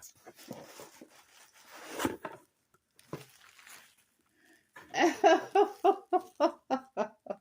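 Faint rustling and handling of a cardboard box and its packing as it is opened, with a thump about two seconds in. Near the end comes a rapid run of about ten short, pitched vocal sounds, about four a second, the loudest sound here.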